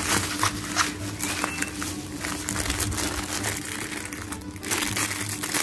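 Plastic bubble wrap and a clear plastic bag crinkling and rustling as they are handled and pulled open, with background music underneath.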